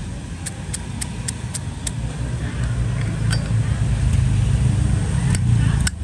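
Light metal clicks from a Zippo lighter being handled: about four a second in the first two seconds, then a few single ones, as its insert is fitted back into the case and the lid shut. Under them runs a steady low rumble of road traffic, the loudest sound.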